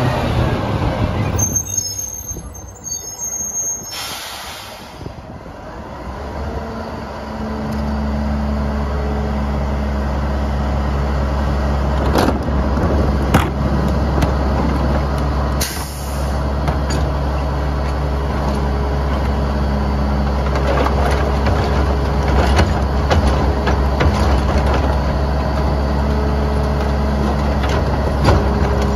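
Rear-loader garbage truck's diesel engine passing close, then two short air-brake hisses about four and sixteen seconds in. After that the engine runs steadily while carts are tipped into the hopper, with scattered knocks.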